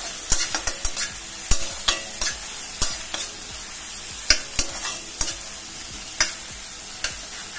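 Onion and tomato masala sizzling in mustard oil in a kadai while being stirred, with a steady frying hiss and frequent sharp, irregular scrapes and knocks of the stirring utensil against the pan.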